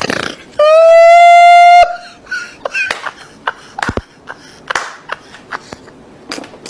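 A loud, single horn-like blast, held steady for about a second and sliding up slightly at its start, followed by scattered short knocks and clicks.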